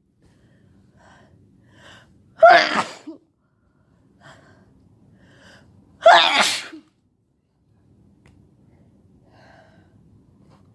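Two loud, sharp sneezes from a person who is sick, part of a sneezing fit, one about a quarter of the way in and one just past the middle, with faint breaths between.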